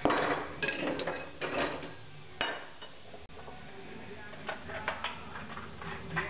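Metal hand tools clattering and clinking on a wooden workbench as they are picked through and moved. There is a run of rattling knocks in the first couple of seconds, then a few lighter clinks near the end.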